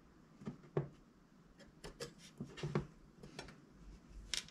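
Scattered light clicks and taps of small parts and hand tools being handled in an open airsoft gearbox, some of them in quick pairs.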